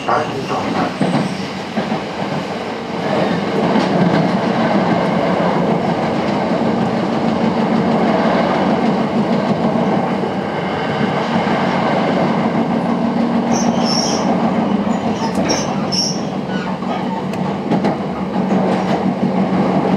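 Sanyo Electric Railway 5000 series electric train running at speed, heard from inside a passenger car: a steady noise of wheels on rails. A few short, high-pitched wheel squeals come about two-thirds of the way through.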